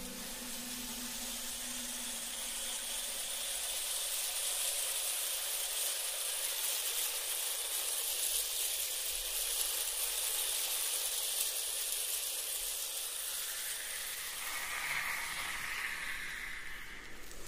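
A steady, even hiss, strongest in the high range, with a brief brighter swell near the end.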